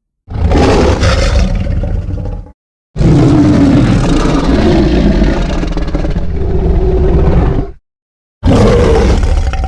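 Baragon monster roar sound effect: three loud, rough roars separated by dead silence, a short one, a long one of about five seconds, and a short one near the end.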